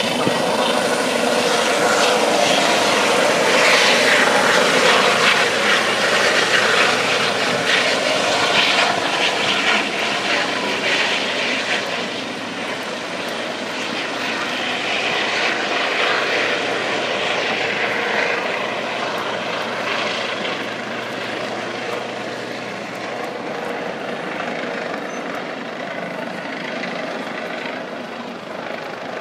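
Helicopter rotor and engine noise as the helicopter flies away low over the water. It is loud at first and grows fainter after about twelve seconds, settling into a steady, more distant hum.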